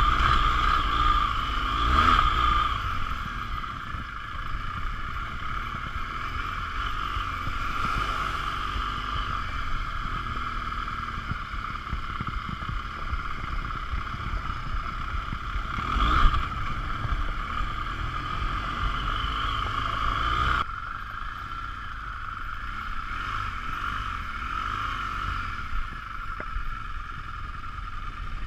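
BMW R 1200 GS LC's boxer twin engine running at low, steady revs while riding over gravel, with rumble and a few short knocks, the sharpest about halfway through. The sound changes abruptly about two-thirds of the way in.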